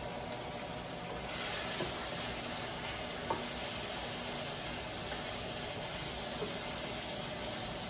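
Flour-coated tofu sizzling steadily in olive oil in a non-stick wok, the hiss getting brighter about a second in. A few light taps come from the wooden spatula as it is stirred.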